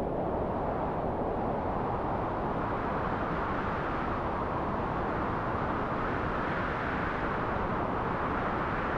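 Wind sound effect: a steady blowing noise without pauses, swelling slightly in the middle and again near the end.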